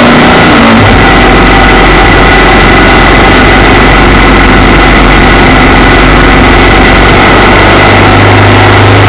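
Motorcycle engine running at road speed with wind and road noise, loud, as picked up by a camera mounted on the bike. Its low note changes about a second in and again near the end.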